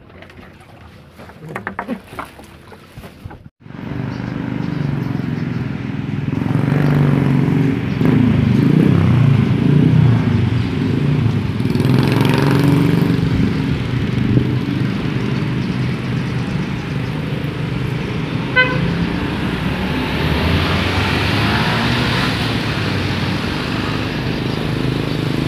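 Road traffic, mostly small motorcycle engines running and passing, starts suddenly about four seconds in and stays loud and steady. A short horn beep sounds a little past the middle.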